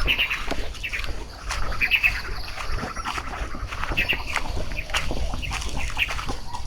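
Birds calling outdoors in the countryside, short harsh calls repeated every second or so, over a steady low rumble.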